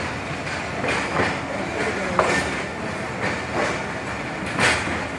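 Railway passenger coach rolling slowly, its wheels clacking over rail joints at irregular intervals over a steady rumble. A short squeak comes about two seconds in.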